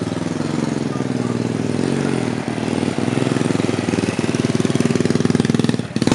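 Small motorbike and scooter engines running at low speed close by, a steady, even engine note.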